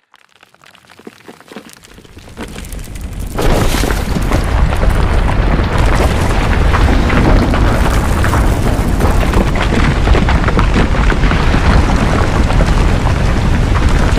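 Rocky landslide: a few scattered stones clattering build up, then about three seconds in it breaks into a loud, continuous rumble of tumbling rocks full of knocks and clatter.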